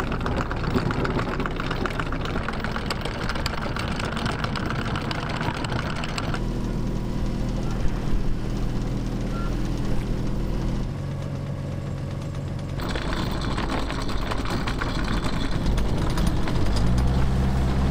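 Sailboat's inboard engine running under way while anchoring, its pitch stepping up and down several times as the throttle changes. Near the end the engine speed rises as it is put under load, backing down on the anchor to set it.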